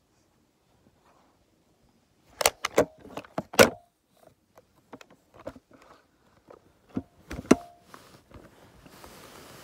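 Handling noise from a phone or tablet being picked up, bumped and set back down, along with a spiral-bound sketchbook being repositioned. A cluster of sharp knocks and rattles comes about two and a half to four seconds in, and scattered knocks follow, with another loud one around seven and a half seconds.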